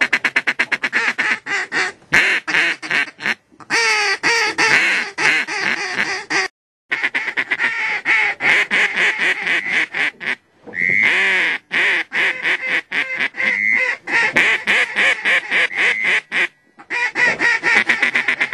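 Mallard duck calls blown in long runs of rapid chuckling and quacks, broken by a few short pauses.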